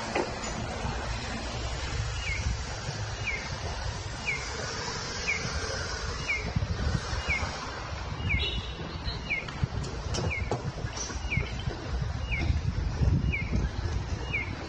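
Japanese audible pedestrian crossing signal (Rikuun No. 21 type) sounding its bird-like 'piyo-piyo' cue: a short, falling, high chirp about once a second, which tells pedestrians the crossing is open. Its speaker adjusts its volume to the street noise, so the chirps rise and fall in loudness over low traffic rumble.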